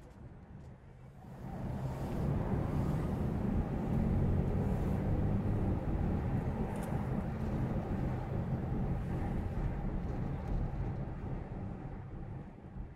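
Car driving along a city street: steady road and engine rumble that swells about a second and a half in, holds, then eases off near the end.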